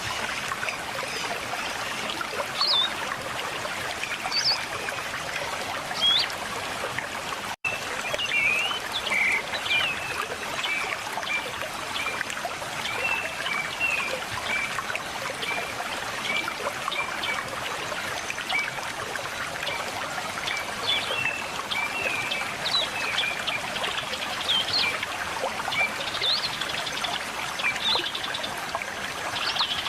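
River water babbling steadily under many small birds chirping and twittering, the chirps busier after a split-second gap about seven and a half seconds in.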